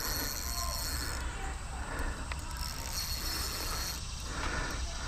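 Fishing reel being wound in, a soft mechanical clicking whirr, with no drag run from the hooked fish.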